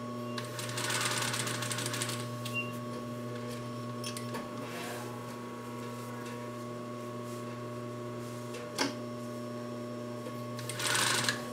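Sewing machine basting twist cord trim onto a pillow: its motor hums steadily, with short stretches of stitching about a second in, around five seconds and near the end, and a single click late on.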